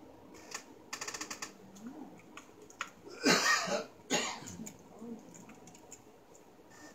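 Handling noise from assembling a ring light and tripod stand: scattered clicks, a quick rattling run of clicks about a second in, then a loud short burst about three seconds in and a smaller one just after.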